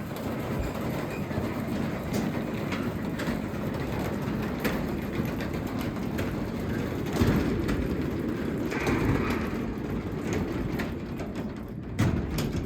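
Craftsman 3/4 hp garage door opener running the garage door closed: a steady rumble with the rattling clatter of the door moving down its tracks. There is a brief louder bump near the end, and then it stops.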